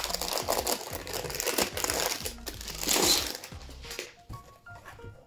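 Clear plastic shrink-wrap crinkling and crackling as it is peeled off stacked cardboard punchboard sheets, loudest about three seconds in, then dying away. Soft background music of plucked notes comes in near the end.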